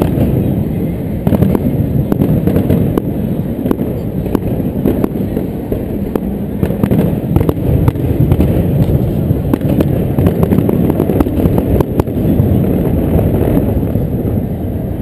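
Fireworks going off over the harbour: a continuous run of bangs and crackles over a steady low rumble.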